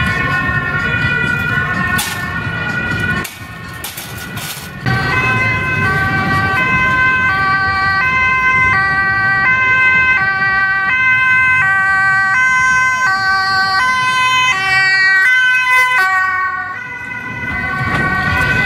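Dutch ambulance's two-tone siren, switching between a high and a low note about every 0.7 seconds, over a low rumble of traffic and crowd. It drops away briefly about three seconds in, then comes back.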